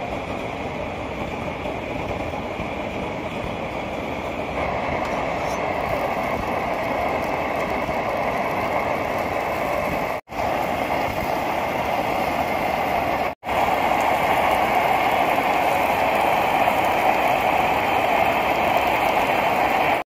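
Butter and a folded tortilla wrap frying in a hot cast-iron skillet, making a steady sizzle that grows louder about four seconds in and again near the end. It is broken twice by brief silent gaps.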